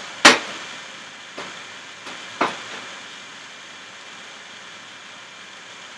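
Kitchenware knocking on a work surface: one sharp, loud knock about a quarter second in, then three fainter taps over the next two seconds, over a steady hiss.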